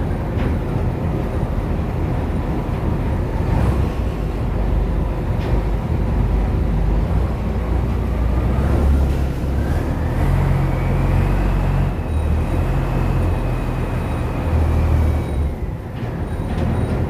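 Boat engine running steadily, a continuous low drone. A faint higher whine rises a little past the middle and fades near the end.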